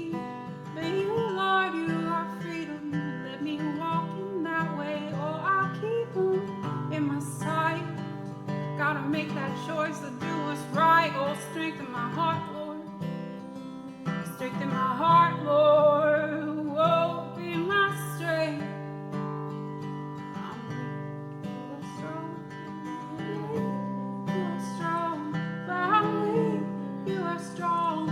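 Music led by acoustic guitar, with a melody line wavering over sustained low notes.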